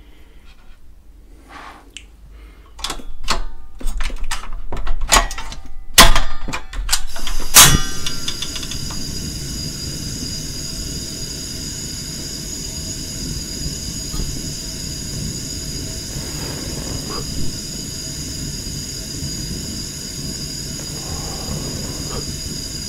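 Portable butane gas stove being lit: a run of clicks and knocks from the igniter knob over several seconds, then a sharp snap as the burner catches, about eight seconds in. The flame then settles into a steady gas hiss with a thin high whine over it.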